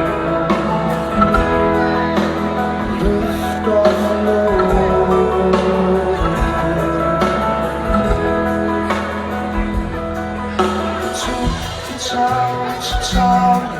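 Live rock band playing a slow song in concert: held chords over a steady bass line, with a voice singing.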